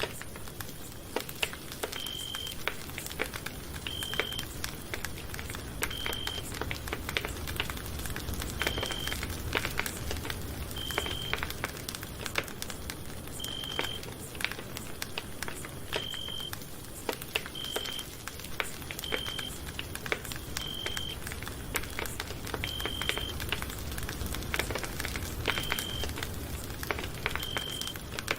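Campfire crackling and popping with many irregular sharp snaps over a low steady rumble. A short, high, beep-like tone repeats about every two seconds throughout.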